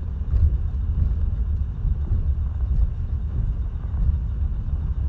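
Car driving, heard from inside the cabin as a steady low rumble of engine and road noise.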